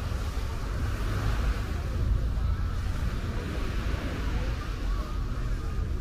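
Crowded beach ambience: wind buffeting the microphone in a low, uneven rumble, with faint chatter of beachgoers in the background.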